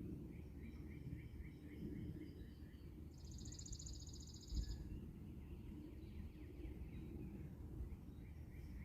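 Small birds calling at a distance: a run of quick repeated chirps, then a high, buzzy trill lasting about a second and a half, over a steady low outdoor rumble.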